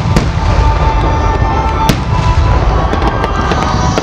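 Aerial firework shells bursting: two sharp bangs, one just after the start and one about two seconds in, over a continuous low rumble of booms, then a patter of crackling stars near the end.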